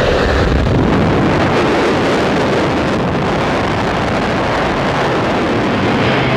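Steady, loud rush of wind buffeting the microphone at the open door of a skydiving plane in flight, with the plane's engine running underneath.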